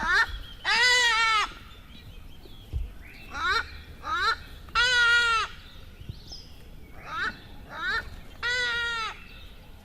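A large bird calling: three long calls about four seconds apart, each slightly arched in pitch, with short upward-sweeping calls between them.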